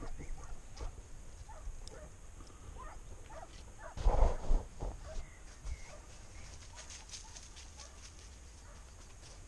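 A hunting dog baying in the distance in short broken calls while it chases wild boar. About four seconds in, a hand rubbing over the body-worn camera gives a brief loud scuffing noise.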